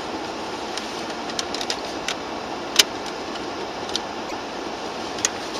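Steady cabin noise of a stationary car with its engine idling, picked up by a dashcam microphone, with a few scattered sharp clicks, the loudest about three seconds in.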